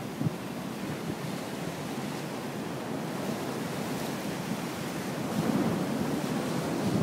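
Storm surf: heavy sea waves surging and breaking against a rocky shore, a steady rushing wash that swells louder about five seconds in.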